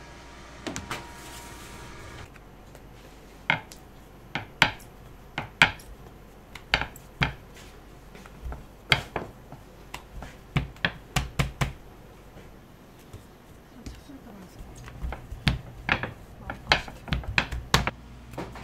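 Irregular sharp clinks and knocks of kitchen utensils and pans, some coming in quick runs of several.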